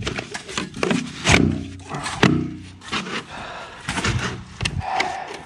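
A black plastic tee fitting being pushed and twisted onto corrugated plastic drain pipe: plastic creaking in a few short pitched creaks, with several knocks and clicks of the fitting against the pipe.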